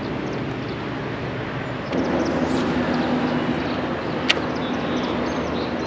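A kayak's electric outboard motor humming steadily under way, with the rush of water and wind, growing louder about two seconds in. A single sharp click sounds a little after four seconds.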